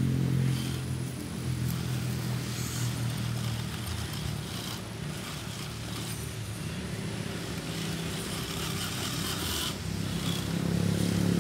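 Electric motor and gearbox of a radio-controlled scale crawler whining steadily as it crawls up a steep dirt slope, with a couple of short scrapes about three seconds in and near the end.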